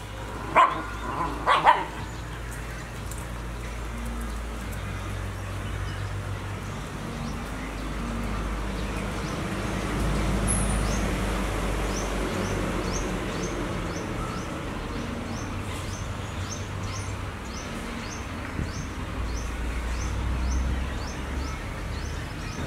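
A puppy barks twice, short and high, in the first two seconds, over steady outdoor background noise. A faint high chirp repeats about twice a second through the second half.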